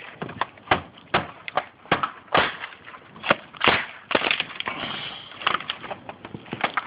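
Prying apart an old wooden window frame with a crowbar: a run of irregular sharp knocks, cracks and scraping of metal on wood as trim and frame pieces are worked loose.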